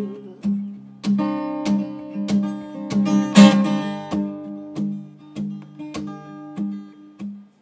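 Acoustic guitar strummed on its own, a steady chord pattern about every 0.6 seconds, the strums growing softer toward the end.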